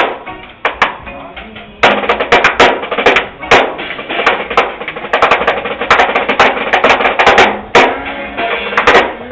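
Live band on stage warming up. A few drum kit hits come first, then about two seconds in the band plays together: steady drum strokes over sustained instruments.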